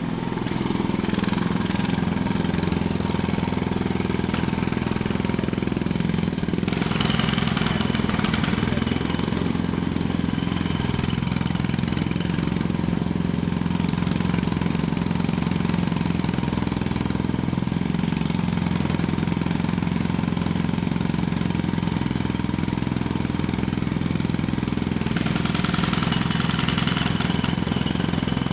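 Jackhammer recorded close up, hammering continuously at a fast, steady rate with no pauses, a little harsher from about 7 seconds in and again near the end.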